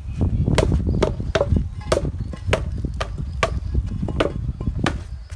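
A rattan sword striking a pell of stacked rubber tyres, about eight sharp whacks in a fast, uneven series, over a steady low rumble.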